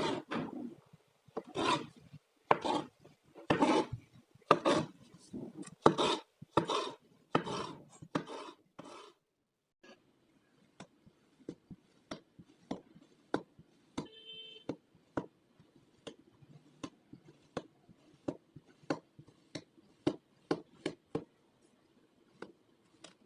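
Kinetic sand being cut and scraped with a tool: a series of gritty scraping strokes roughly every half second to a second, then after a short break a quieter run of crisp little ticks and crackles, with a brief high squeak partway through.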